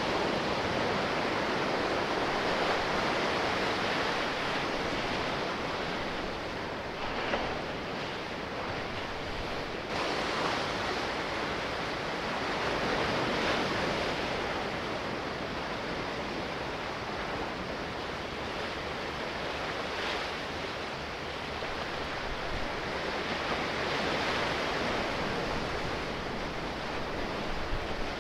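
Sea waves washing, in a steady rush that swells and eases every few seconds.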